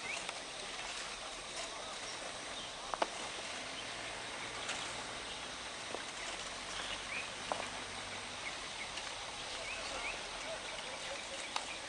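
Riverbed ambience: a steady outdoor hiss with short bird chirps and a few sharp knocks of a digging tool striking stones and sand. A faint low rumble sounds for a few seconds in the middle.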